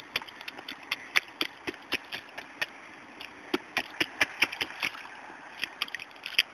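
Small rubber rain boots stepping and stomping in a shallow puddle on asphalt: a quick, uneven run of little splashes and slaps, about two or three a second.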